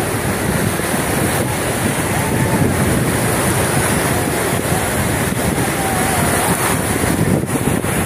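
Stormy sea surf: rows of waves breaking and rushing on the shore in a continuous loud wash, with strong wind buffeting the microphone.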